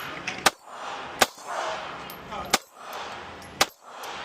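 Four 9mm pistol shots fired at a slow, uneven pace, about a second apart, each a sharp crack followed by a short ringing tail.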